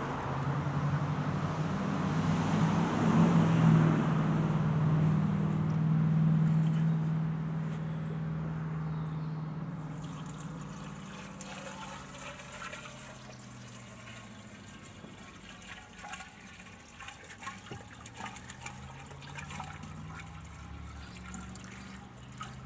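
Water pouring from a plastic jerry can into the cooling-water hopper of a Bamford 3 hp stationary petrol engine. The pour is steady and louder for about the first ten seconds, then quieter, with small splashes and drips.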